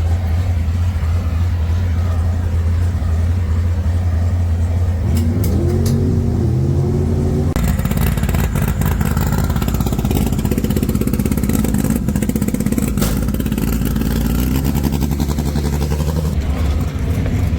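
A drag car's engine idling with a steady low drone, rising in pitch as it revs about five seconds in. Then a sudden, loud surge to full throttle at about seven and a half seconds that carries on for several seconds before settling back to a steadier drone near the end.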